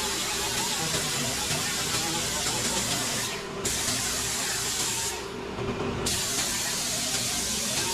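Compressed-air tool used in body-filler work, hissing steadily and stopping twice briefly near the middle.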